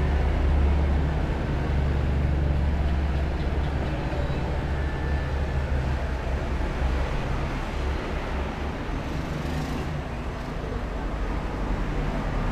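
Steady low rumble under a wash of background noise, with no distinct events.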